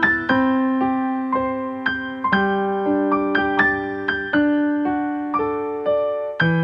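Background music: a gentle piano melody of single struck notes, each ringing and fading.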